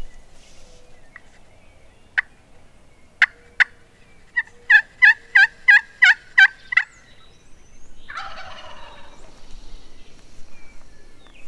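Wild turkey calls: a few sharp clucks, then a loud run of about eight yelps, then about a second later a fainter, rattling gobble from a Merriam's tom.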